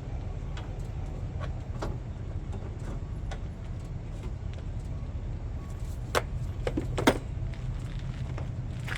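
Scattered metallic clicks and clinks of hand tools and battery cable being handled, with two sharper clanks about six and seven seconds in, over a steady low rumble.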